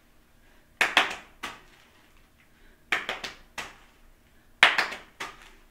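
Hand clapping in three quick groups of three or four claps, about two seconds apart: rapid claps made while a tossed beanbag is in the air, before catching it.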